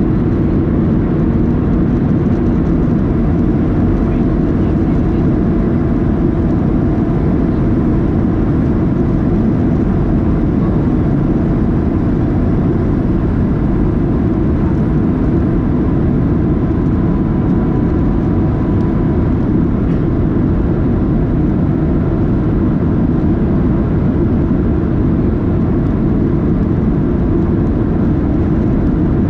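Steady cabin noise inside a Boeing 737-700 in descent: the hum of its CFM56-7B jet engines and the rush of air past the fuselage, deep and even, with no breaks.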